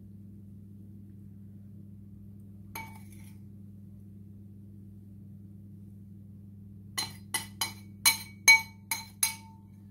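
A metal spoon clinking against a glass mixing bowl: one clink about three seconds in, then a quick run of about eight ringing clinks near the end as the bowl is tapped empty over the baking tray. A steady low hum underneath.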